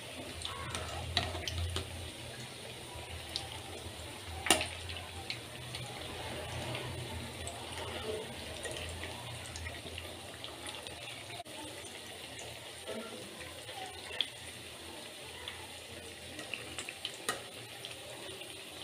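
Chana dal masala vadas deep-frying in hot oil in a kadai: a steady bubbling sizzle with scattered crackles, and one sharp click about four and a half seconds in.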